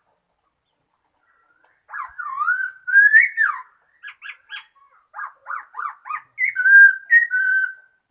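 Laughingthrush singing: after about two seconds of quiet, a run of loud whistled notes that slide up and down, then a string of quick short notes, ending with a few held whistles.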